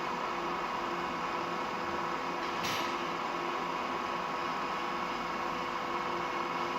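Donau DR32 radial drilling machine running: a steady mechanical hum from its motor and spindle gearbox with several constant tones, and a brief hiss a little under three seconds in.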